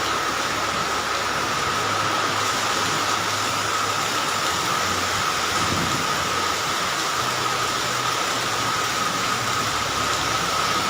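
Heavy tropical rain pouring down steadily, with a thin steady high tone running through it.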